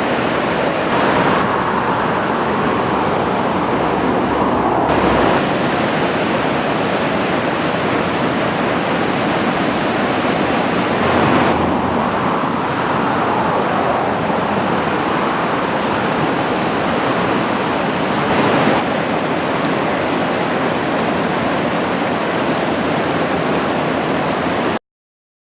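Whitewater rapids on the Wenatchee River: a steady, loud rush of fast water that changes tone a few times and cuts off abruptly near the end.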